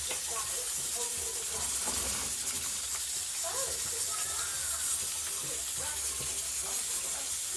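Hot cooking oil sizzling in a frying pot with a steady high hiss. Faint voices in the background.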